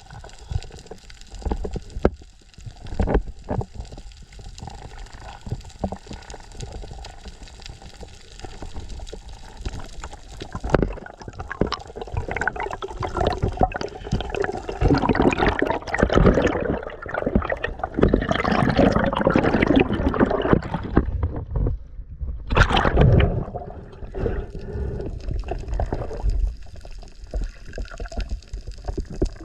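Sea water gurgling and sloshing around the camera in uneven surges, heaviest in the middle of the stretch, with a separate strong surge near the end.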